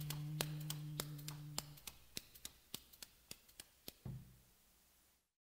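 The end of a recorded country song: a final held note dies out about two seconds in, while a steady ticking percussion beat of about three ticks a second fades away. A moment of dead silence follows near the end.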